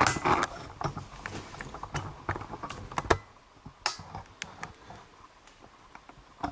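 Scattered light clicks and taps of metal tools and fittings being handled, with a sharper knock about three seconds in and another about a second later.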